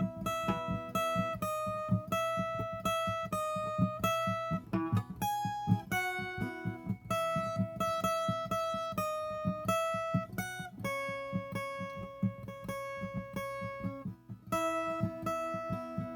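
Viola caipira (Brazilian ten-string guitar) playing a film-theme melody solo, with long ringing melody notes over a quick, steady plucked bass pattern.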